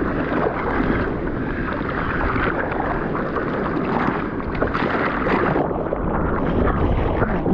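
Seawater splashing and rushing close up around a surfboard as the surfer paddles out through the surf.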